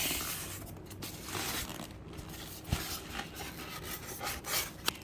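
Plastic wrapping rustling and rubbing as it is worked off a boxed PC case, with a couple of light knocks.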